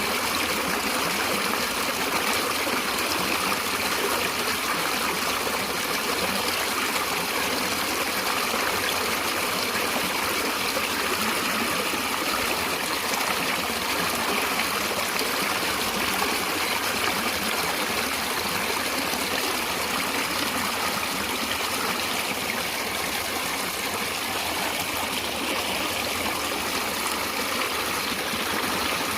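A stream of running water, flowing and trickling steadily without a break.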